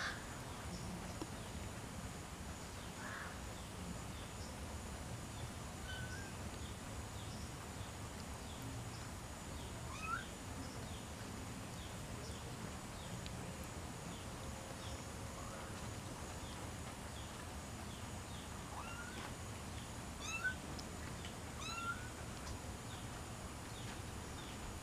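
Young kittens and a baby genet giving a few short, high, rising mews, spaced out and clustered near the end, over a faint regular high chirping in the background.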